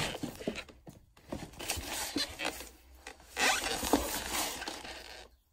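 Jacket fabric rubbing and rustling against the phone's microphone as it is handled, in irregular scrapes, loudest about three and a half seconds in.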